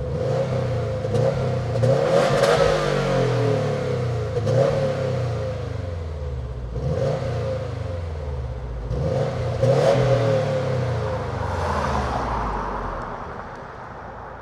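2015 Subaru WRX STI's turbocharged 2.5-litre flat-four revved about five times through the standard factory exhaust, each blip rising and falling in pitch. It is the stock sound, which the owner finds not loud enough.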